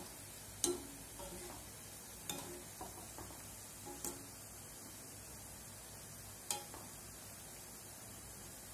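Jackfruit seed fingers deep-frying in hot oil, a steady faint sizzle, with four sharp metal clinks of a wire spider strainer against the pan, the loudest just under a second in and again near the end.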